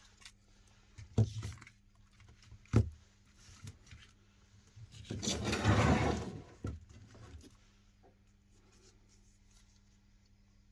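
Two sharp knocks a second and a half apart, then a louder burst of rustling handling noise lasting about a second and a half, over a faint steady hum.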